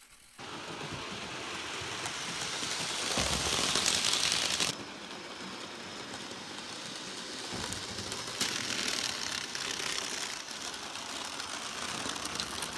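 OO scale model locomotives running on a track layout: the steady whir of the small electric motors and the wheels running over the rails, louder for a second or so about three seconds in.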